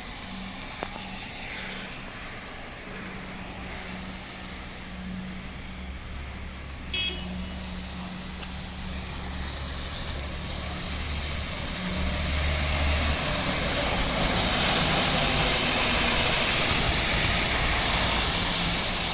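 A city bus's engine running with a steady low hum. The bus grows louder as it approaches and the engine and tyre noise swell to a peak over the last several seconds. A brief high-pitched tone sounds about seven seconds in.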